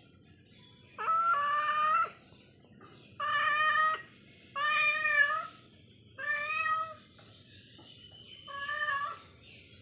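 Domestic cat meowing five times, each meow under a second long and coming about every second and a half; the last meow is fainter.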